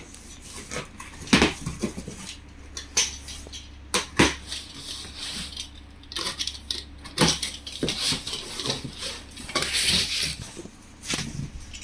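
Cardboard boxes being handled and cut open with a utility knife: scraping and rustling of cardboard and packing tape, with several sharp knocks and a longer scratchy rasp near the end as the blade runs along the box.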